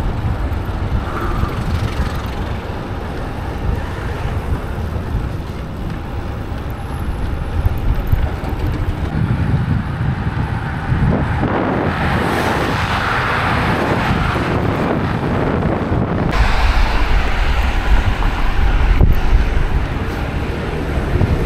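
Wind buffeting the microphone of an action camera on a moving road bike, a steady low rumble, with road traffic behind it. About halfway through a louder rush of road noise swells for a few seconds and then falls away.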